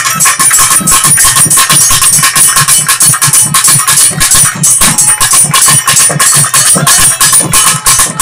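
Temple drums beaten fast and loud with clashing metal percussion, a dense unbroken rhythm of several strokes a second.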